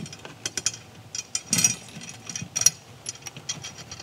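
Tension rods being threaded by hand into the lugs of a Ludwig Black Beauty snare drum: irregular light metallic clicks and rattles of the rods and the metal hoop, with a few louder rattles.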